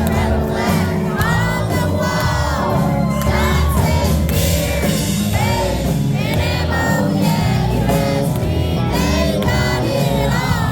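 Live country band playing with a lead vocal, drums and bass, with the crowd whooping and shouting along.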